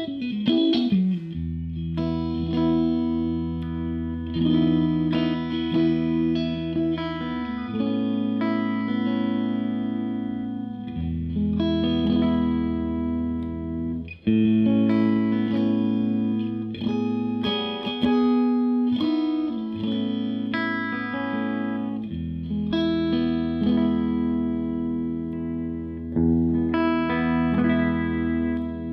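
Odlair SH 210 OW 7 Stratocaster-style electric guitar played through a Marshall JTM combo amp: sustained chords changing every couple of seconds, with a bent note at the start and a short break about halfway.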